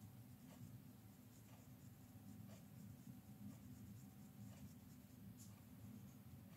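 Faint scratching of a watercolour pencil on paper in short, separate strokes, about one a second, over a low steady hum.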